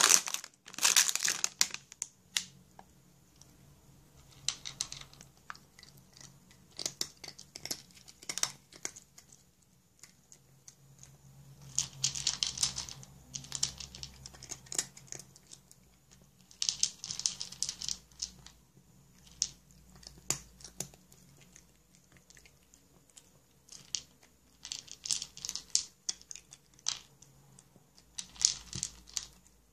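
Domestic cat chewing crunchy dry kibble from a bowl, the pieces crackling in short bouts of a second or two with pauses between. A sharp rustle of the plastic food pouch at the very start is the loudest sound.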